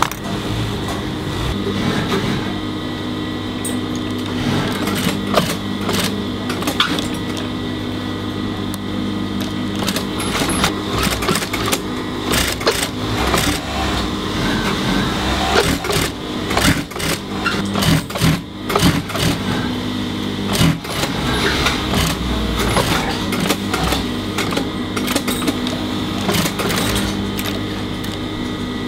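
Industrial sewing machines running, with a steady motor hum and many irregular clicks and short bursts of stitching, busiest from about ten to twenty seconds in.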